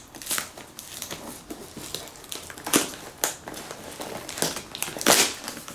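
Plastic packing tape crinkling and tearing as the cardboard flap of a shipping box is pulled open by hand. It comes as a series of short rustling rips, the loudest about five seconds in.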